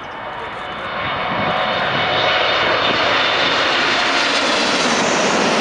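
Boeing 777-200ER airliner on final approach passing low overhead: its jet engine noise swells over the first two seconds, then holds loud and steady, with a thin high whine on top.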